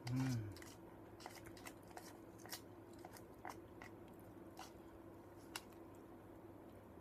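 Someone eating instant cup noodles: a brief low hummed "mm" right at the start, then quiet chewing with scattered small clicks and taps of a plastic fork in the paper cup.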